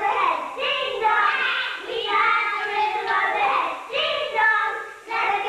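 Young girls singing a song together in high voices, phrase after phrase, with a brief pause about five seconds in.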